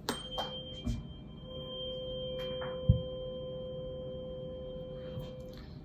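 Two tuning forks of different pitch, struck one after the other, ringing together as steady pure tones; they are not very loud. A soft knock comes about three seconds in.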